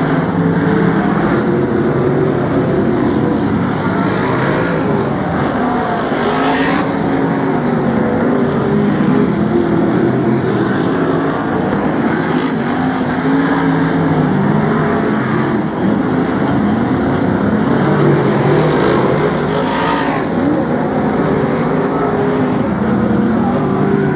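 A pack of BriSCA F1 stock cars racing, their big V8 engines revving and easing off as several cars run together. A brief rush of noise comes twice, about six and about twenty seconds in.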